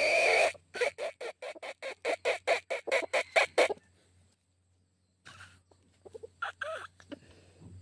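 Red junglefowl rooster giving a loud call, then a fast run of about fifteen clucks, roughly five a second. After a short pause come a few softer clucks near the end.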